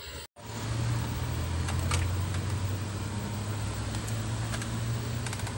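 Steady low hum with a hiss over it, starting after a brief silent cut about a third of a second in, with a few faint clicks.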